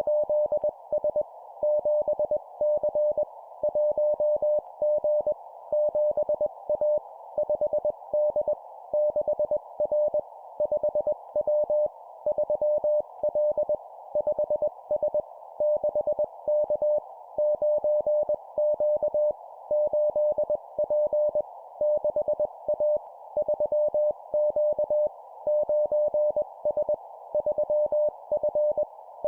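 Morse code (CW) sent at 20 words per minute: a single steady tone keyed on and off in quick dots and dashes. It forms short two-character groups of letters and numbers with brief pauses between them, over a steady soft hiss.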